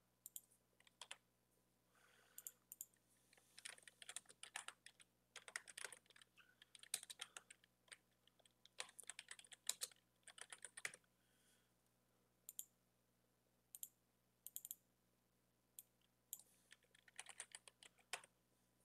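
Faint computer keyboard typing in short bursts of keystrokes, with pauses between the bursts.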